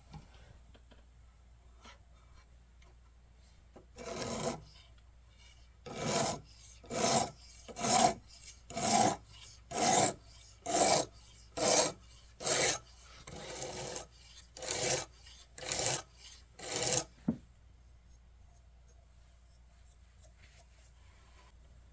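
A steel kitchen knife blade stroked by hand across a diamond sharpening plate. There are about a dozen rasping strokes at roughly one a second, starting a few seconds in and stopping near the last third. The edge is being ground back on a very dull knife.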